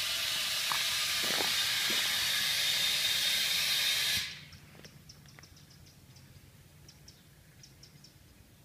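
Compressed air hissing steadily through an inflator hose into a manure spreader's tyre, cutting off suddenly about four seconds in. After that only a few faint clicks.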